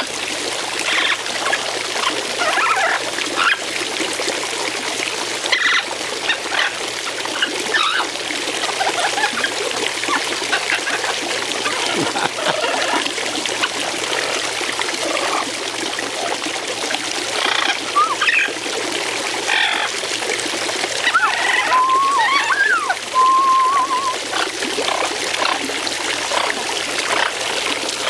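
Fountain water trickling and splashing steadily onto a bathing Amazon parrot, with bursts of splatter as it ruffles and spreads its wet feathers in the stream. A few short whistled bird notes about three quarters of the way through.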